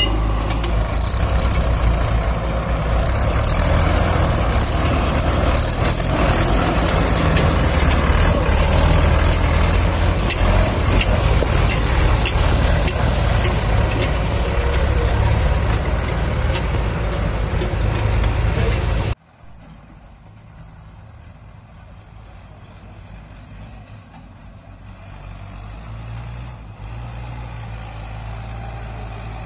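Mahindra 585 DI tractor's diesel engine running steadily, loud and close up, with a trolley loaded with soil. About two-thirds through, the sound cuts suddenly to the same tractor heard much quieter from farther off, growing a little louder as it pulls the loaded trolley.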